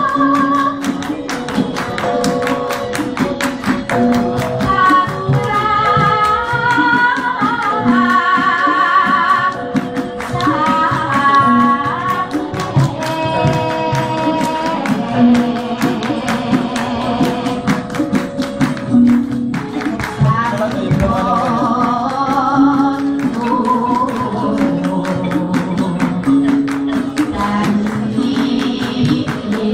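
Javanese palaran: sung tembang with a wavering, heavily ornamented vocal line over gamelan accompaniment, with steady held metallophone notes and rapid, regular percussive strokes.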